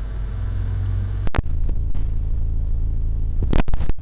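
A steady low rumble, with a sharp click about a second in and a few more near the end.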